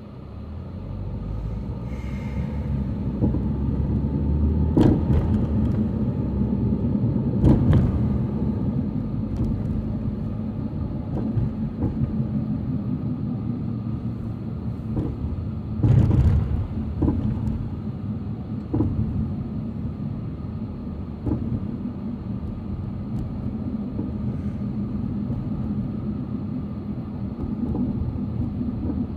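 Heavy road-construction machinery running: a steady low engine rumble with scattered sharp knocks and clanks, the loudest about 16 seconds in.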